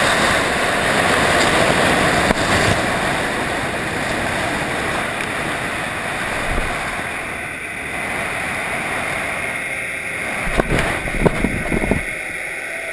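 Water rushing over an underwater camera housing as it moves along the seabed, a steady hiss that eases slightly after the first few seconds. Several sharp knocks against the housing come near the end.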